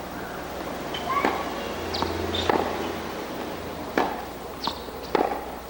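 Tennis balls being hit by rackets and bouncing on a hard court during a baseline rally: about five or six sharp pops, spaced unevenly half a second to a second and a half apart.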